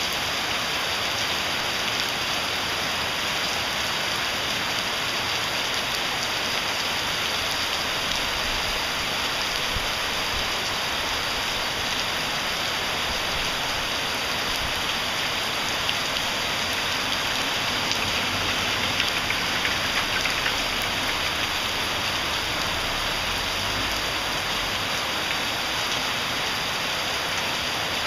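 Heavy rain pouring down onto a paved street and the surfaces around it: a dense, steady hiss of falling drops.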